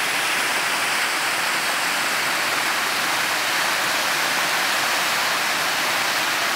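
Sioux River rushing over rapids: a steady, even rush of fast-flowing water that does not change.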